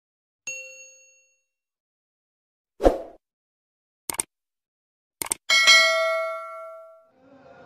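Subscribe-animation sound effects: a short chime, a dull thump, two mouse clicks, then a notification bell ringing and fading away over about a second and a half.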